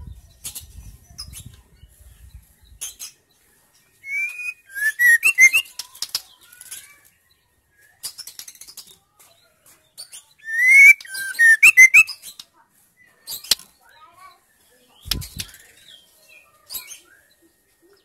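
White-rumped shama singing in two short loud bursts, about four and ten seconds in, mixing clear whistled notes with fast high twittering, with scattered short high chirps between them. A brief low thump comes about three-quarters of the way through.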